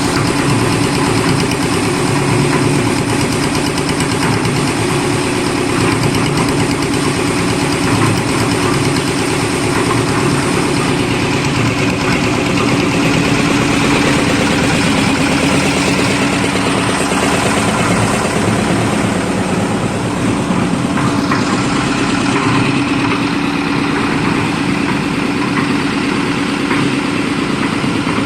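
Old Kirloskar diesel engine on a half-load concrete mixer running steadily.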